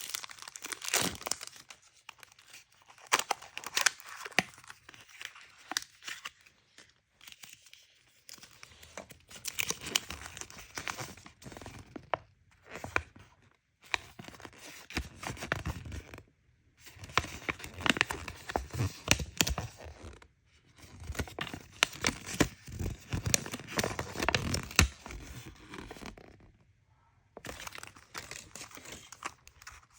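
Packaging being torn open and crinkled by hand in bursts of crackling and rustling, with short pauses between them.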